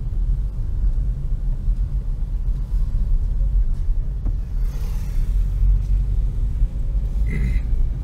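Low, steady rumble of a car's engine and tyres heard from inside the moving car's cabin. A brief rush of hiss comes about five seconds in, and a short higher-pitched sound near the end.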